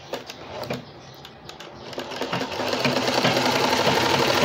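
Sewing machine stitching lace trim onto cotton fabric: a few light clicks at first, then about two seconds in the machine starts up, grows louder over a second and runs steadily.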